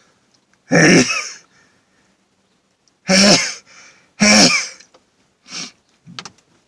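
A man sneezing three times: one loud sneeze about a second in, then two more in quick succession near the middle. A few short, quieter sounds follow near the end.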